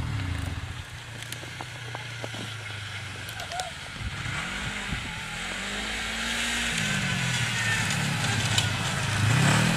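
Snowmobile engines running, their pitch dropping at the start, then rising and falling in a few swells as the throttle is worked. One snowmobile draws closer and gets louder over the last few seconds.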